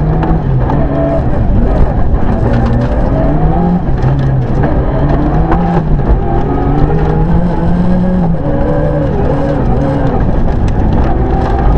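Rally car engine heard from inside the cabin, running hard under full throttle, its pitch climbing through each gear and dropping back at the shifts. Gravel ticks and rattles against the car throughout.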